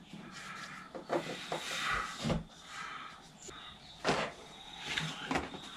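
Packaging and parts being handled: scattered light knocks and rustling, the sharpest knock about four seconds in.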